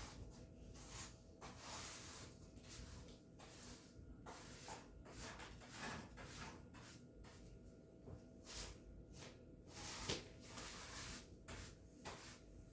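Floor being swept by hand: irregular short swishes and scrapes across the floor, with a few light knocks and clicks.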